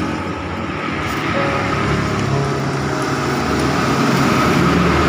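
Road traffic running past: steady engine and tyre noise that swells a little in the second half.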